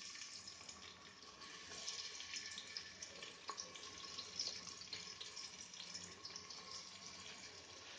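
Sliced onions sizzling in hot oil in an aluminium pressure cooker as they begin frying for browning: a faint, steady hiss with scattered small crackles.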